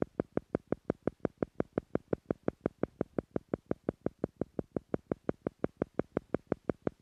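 Theta-frequency meditation pulse track: short, identical electronic beeps in a rapid even beat, about five to six a second, meant to slow brainwaves toward the theta level.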